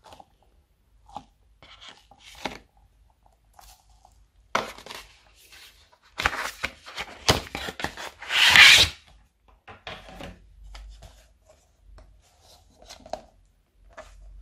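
Cardboard packaging of an eyeshadow palette being handled: scattered rubbing and tapping noises, with a longer, louder scraping rustle about six to nine seconds in.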